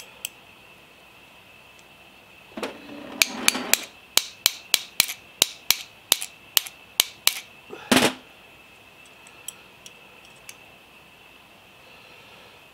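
Small hammer tapping out a worn pivot pin from a collet closer's locking dog: a run of about fourteen sharp metallic taps, roughly three a second, starting about three seconds in, then one louder knock near eight seconds.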